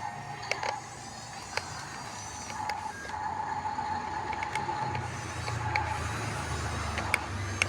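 Electric drive motors and gearboxes of an RC bulldozer whining steadily, louder from about three seconds in, with a few sharp clicks and ticks scattered through.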